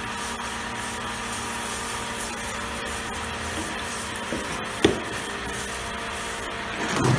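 Hand brush with plastic bristles scrubbing back and forth over a wet etched zinc plate, a rubbing scrape with each stroke, over a steady hum. A single sharp knock about five seconds in.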